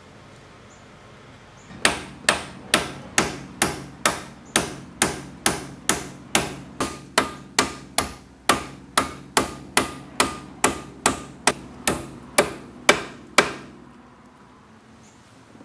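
Hammer blows on a punch driving a brake pad retaining pin out of a 1988 Pontiac Fiero rear brake caliper: a steady series of about two dozen metal-on-metal taps, a little over two a second, each with a short ring. The tapping starts about two seconds in and stops shortly before the end.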